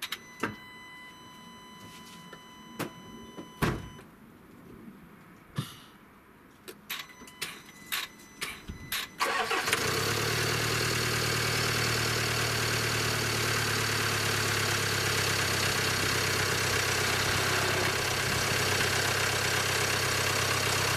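Scattered clicks and a steady electronic tone for a few seconds. Then, about nine and a half seconds in, the Land Rover Discovery Sport's engine cranks and starts, and settles into a steady idle. This is a cranking test of the battery, which held above 10 volts while the starter ran.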